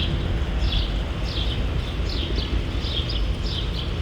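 A Bell 206 helicopter's turbine and rotors run steadily as a low, even rumble with a few steady tones in it. Small birds chirp over it, two or three short high chirps a second.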